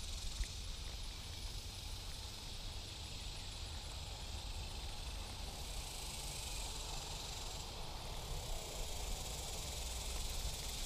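Steady high hiss of insects in the creekside trees, with a faint rapid pulsing high up through the first half, over a low rumble.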